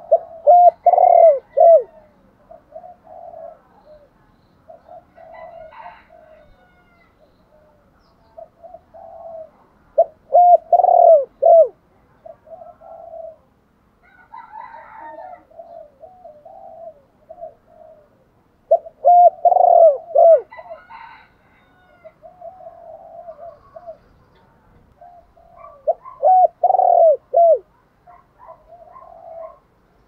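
Spotted dove cooing: four loud phrases of several rolling coos each, coming about every eight seconds, with softer coos in between.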